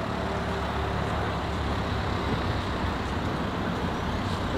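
Steady low rumble of a motor vehicle.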